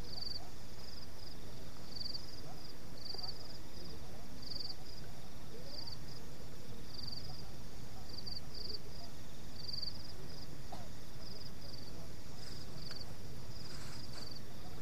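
Crickets chirping: short high chirps repeated about twice a second, over a low steady rumble.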